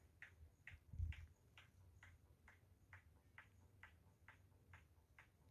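Faint, regular ticking, about two ticks a second, with one dull thump about a second in.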